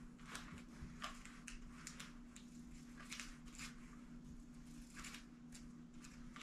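Faint, irregular rustling and scratching of hands handling mesh drywall tape on a carpet, over a steady low hum.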